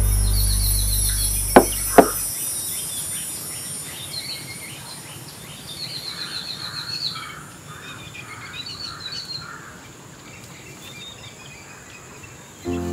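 Birds chirping in short repeated calls over a steady high insect hiss. The tail of a low music drone fades out in the first two seconds. Two sharp clicks come about a second and a half and two seconds in, and music starts again at the very end.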